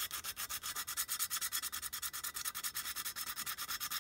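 Hand sanding of paint and rust on the tinplate body of a clockwork O gauge locomotive: rapid, even back-and-forth scratching strokes of abrasive on metal.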